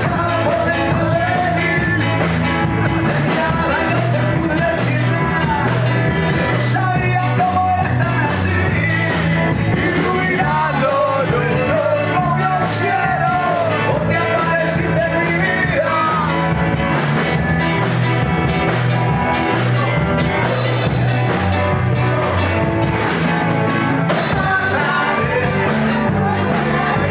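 Live band playing a song loudly, with a singer singing over the band and a repeating bass line.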